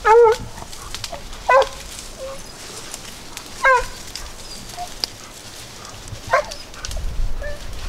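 Hog-hunting dogs barking at a wild hog hidden in a briar patch: four single barks a second or two apart, the first the loudest.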